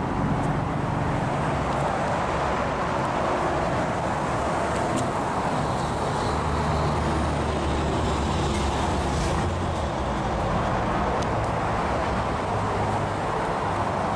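Steady vehicle rumble and traffic-like outdoor noise, with a few light clicks.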